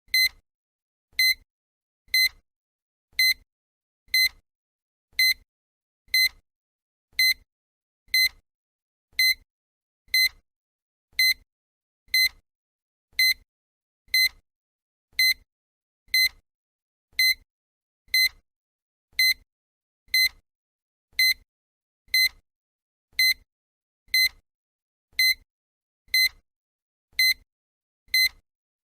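Countdown timer sound effect: a short electronic beep repeating steadily once a second, each with a faint low thud beneath it, marking each second of the count.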